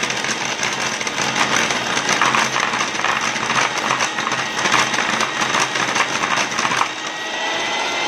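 Electric hand mixer beating butter, sugar and curd cake batter in a glass bowl, the beaters clattering against the bowl as it runs. About seven seconds in the clatter stops and the motor runs on alone with a steady, slightly rising hum.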